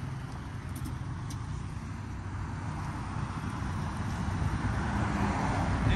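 A motor vehicle running close by: a steady low engine hum with road noise that grows louder over the last few seconds.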